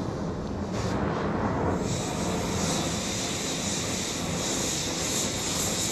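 Oxy-acetylene cutting torch burning with a steady rushing noise. About two seconds in, the oxygen is opened and a loud high hiss joins as the sooty acetylene flame is adjusted into a blue heating flame.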